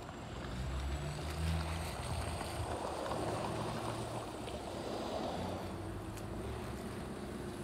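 A low, steady engine hum under rough outdoor background noise, a little louder from about half a second in.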